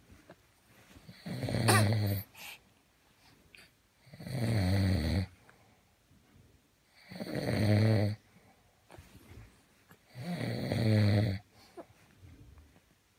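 A man snoring in deep sleep: four long, low snores, about three seconds apart.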